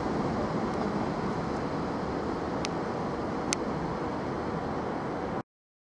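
Class 156 Super Sprinter diesel multiple unit running slowly over pointwork, a steady rumble of its underfloor diesel engine and wheels on the rails. Two short sharp clicks come a little under a second apart around the middle, and the sound cuts off abruptly near the end.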